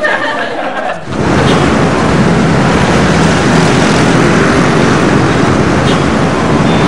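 Street traffic noise, the steady rumble of passing motor vehicles, coming in suddenly about a second in.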